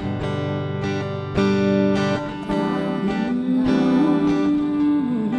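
Electric guitar strummed in clean, ringing chords as an instrumental passage, with a held note that bends and wavers over the chords from about three seconds in.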